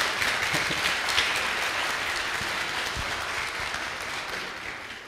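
Congregation applauding, many hands clapping together, slowly dying away near the end.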